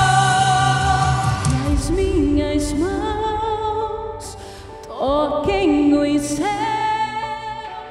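Woman singing a gospel song into a microphone with instrumental accompaniment. A held note over a low sustained chord gives way about two seconds in, after the low chord fades, to shorter sung phrases with sliding runs and vibrato.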